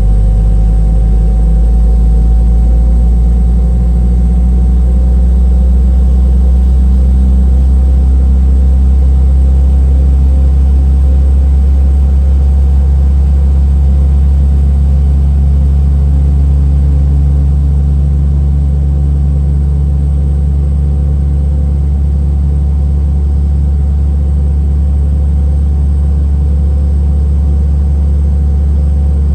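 Boeing 717-200's Rolls-Royce BR715 turbofan engines running just after start, heard inside the cabin: a loud, steady low rumble with a hum. Its low tones shift in pitch over the first several seconds, then settle.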